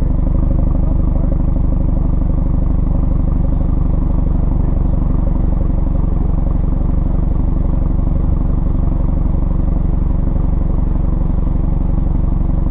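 Exhaust note of a BMW F30 328i with an M Performance exhaust, its turbocharged four-cylinder holding a steady cruise, heard right at the twin tailpipes with road noise underneath.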